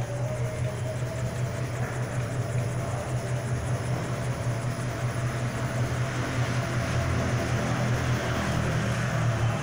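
Ruidcar chassis-noise test rig running, its platforms shaking the car's wheels so that suspension noises can be heard from underneath: a steady low mechanical hum.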